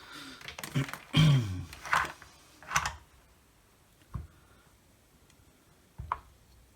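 Handling noises on a workbench as a multitool's parts and test gear are moved: a run of clicks, scrapes and knocks in the first three seconds, then two single knocks about four and six seconds in.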